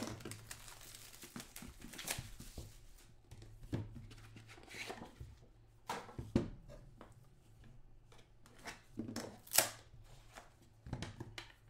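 A trading card box being handled and opened by hand: scattered scrapes, rustles and a few sharp knocks as the box slides on the table and its lid comes off, the loudest knock about nine and a half seconds in.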